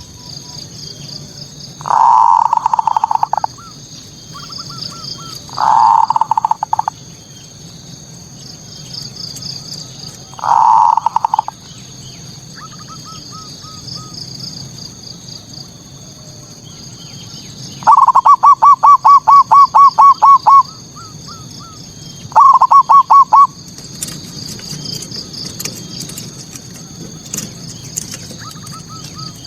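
Zebra dove (perkutut) cooing its territorial 'manggung' song, five phrases of rapid staccato notes, the longest a run of about a dozen beats a little past the middle. A steady high trill runs underneath throughout.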